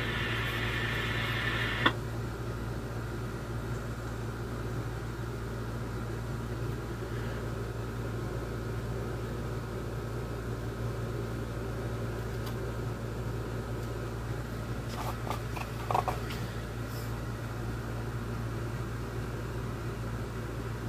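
Scanner radio hiss from an emergency dispatch channel cuts off with a squelch click about two seconds in. A steady low electrical hum follows, with a few faint clicks near the end.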